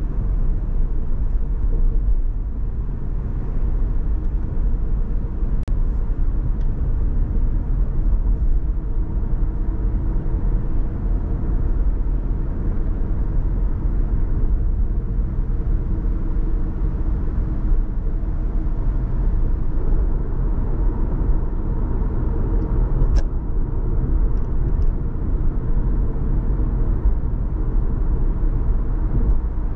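Car driving at steady speed: an even low rumble of engine and tyre noise, with a couple of brief faint clicks.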